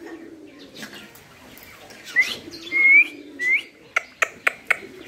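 Rose-ringed parakeets giving three short whistled chirps, each rising in pitch, about two seconds in, followed by four sharp clicks near the end.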